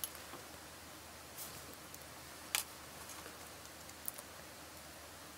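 Faint handling sounds: a few light clicks and a little paper rustle as a peeled sticky-backed paper label is laid onto a plastic badge and pressed down, the strongest click about halfway through.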